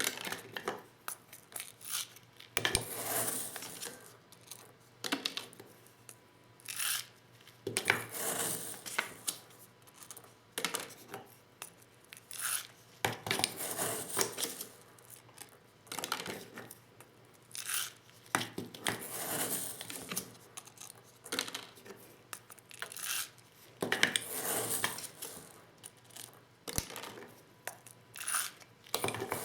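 Hand reloading of 12-gauge shotgun shells with a Lee Loader set: irregular clicks, clinks and short scraping rustles as shells and the loader's small parts are handled, with two sharp knocks, one near the start and one near the end.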